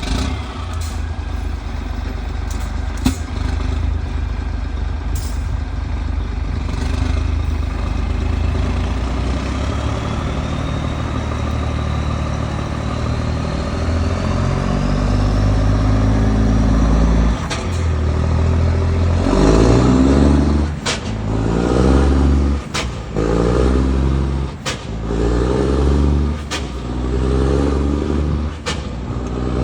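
Scania 6x6 truck's diesel engine and exhaust running with a deep, steady note, building in pitch over several seconds with a high whistle rising alongside. From about two-thirds of the way in it is revved in short blips about every two seconds, with sharp clicks between the revs.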